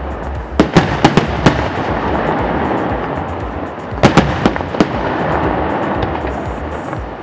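Fireworks going off: a cluster of sharp bangs about half a second in and another about four seconds in, over a steady rumble and crackle, with music underneath.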